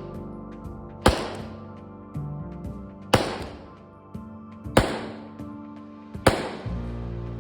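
Background music with sustained chords. Over it, a sharp bang with a long decaying tail sounds four times, about one and a half to two seconds apart.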